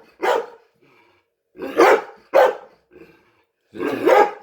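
Chocolate Labrador retriever barking in single loud barks: one right at the start, two in quick succession about two seconds in, and a longer one near the end. This is demand barking for food.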